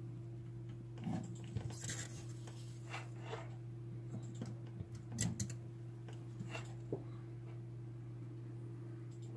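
Light clicks, taps and scrapes of a soldering iron and hands working on an open stereo amplifier's metal chassis and circuit boards, over a steady low electrical hum.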